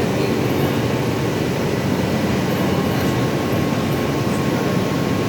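Absorbent cotton processing machine running, a steady loud mechanical noise with a faint constant whine.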